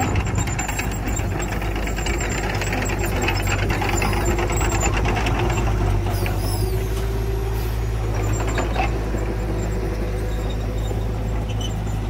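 Diesel engine of a loaded dump truck running steadily as the truck moves in close over the dirt track, with a brief high squeal about six seconds in.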